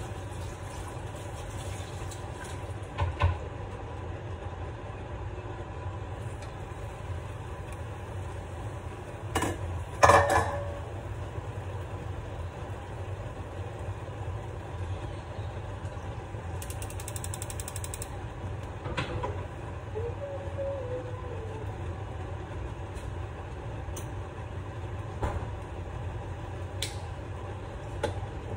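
Metal cookware knocking and clattering over a steady low background hum, the loudest double knock about ten seconds in as the lid is taken off a frying pan of tomato risotto on a gas hob, with a few lighter knocks after.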